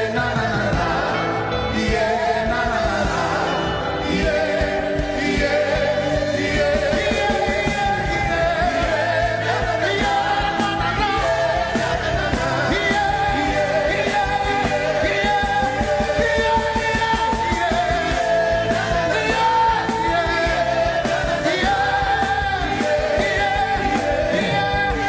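Gospel worship song performed live: a singer holding long notes over a band with a steady beat.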